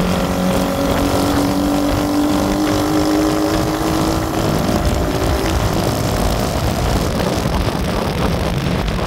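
A motor vehicle's engine running at road speed under heavy wind rush on the microphone, its note rising slowly for the first few seconds and then sinking into the wind noise.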